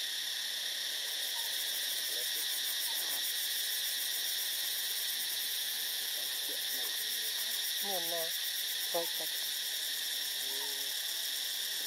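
Dense insect chorus, a steady high-pitched drone with a fast pulsing at the top. A few faint short wavering calls come through it, the clearest about eight and nine seconds in.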